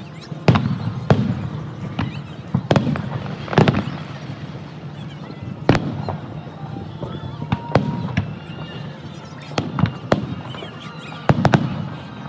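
Aerial fireworks shells bursting: about a dozen sharp bangs at irregular intervals, each followed by a low rumbling echo.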